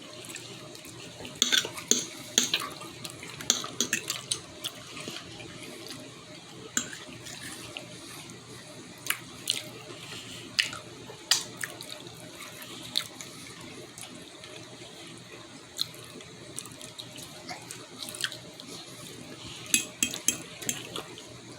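Someone eating: scattered sharp clicks and taps of utensils on a plate, with mouth sounds, over a faint steady hiss.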